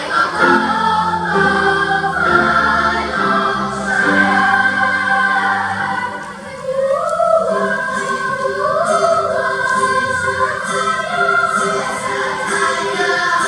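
Children's choir singing in parts, with sustained chords and a moving melody. A low held note sounds under the voices for the first half, and the sound dips briefly midway before the singing resumes.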